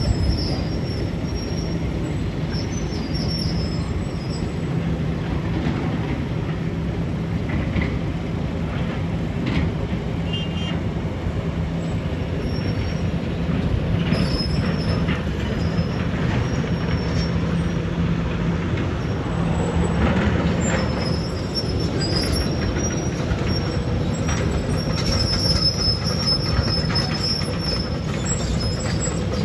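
Heavy demolition equipment running steadily, with brief high metallic squeals from time to time.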